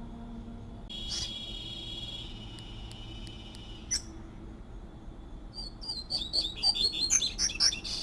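Double-collared seedeater (coleiro) singing its whistled 'tui-tui' song: a long held note about a second in, a single sharp note near four seconds, then a quick run of loud notes near the end, the loudest part.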